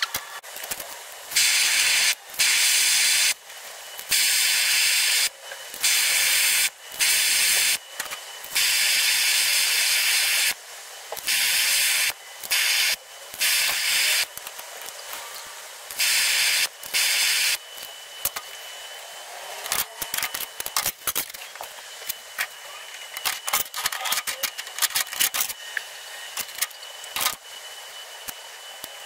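A gas torch hissing in repeated bursts of a second or two each while brass plates are heated for soldering. In the last third the hiss gives way to scattered light clicks and taps.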